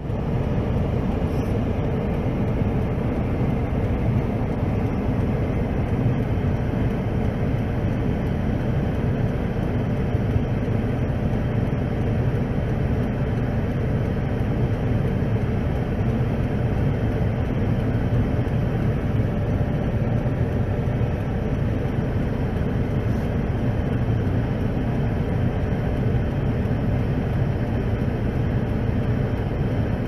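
Steady low rumble of blizzard wind and vehicle noise heard from inside a car's cabin, unbroken and even throughout, with a faint steady hum over it.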